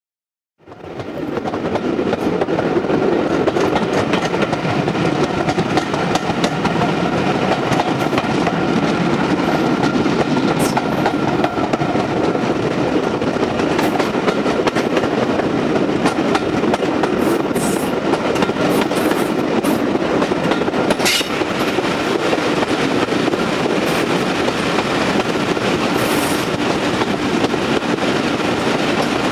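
A train running along the track: a loud, steady rumble with wheels clacking over the rail joints and a few brief high squeaks. It starts suddenly about half a second in.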